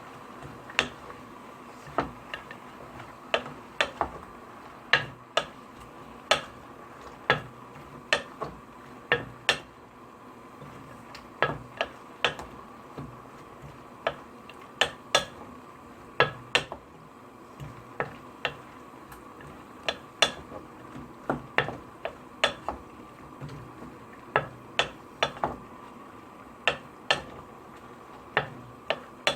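Kitchen utensils knocking and tapping, sharp separate strikes about one or two a second at an uneven pace, over a steady background hum.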